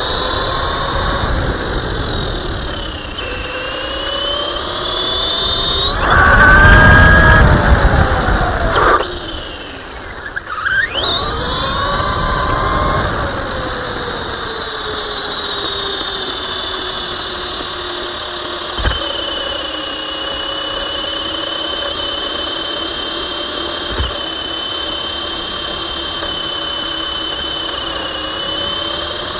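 RC car's motor and gears whining, heard up close from a camera mounted on the car. The pitch rises and falls with the throttle: it climbs steeply to its loudest about six seconds in, drops away around nine to ten seconds, climbs again, then holds fairly steady. Two short knocks come later.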